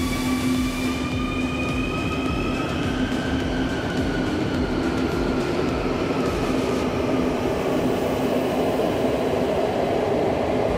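Quito Metro CAF electric train accelerating along an underground platform. The traction motors give a whine of several tones that rises slowly in pitch, over a steady hum, while the rumble of the wheels grows louder through the second half.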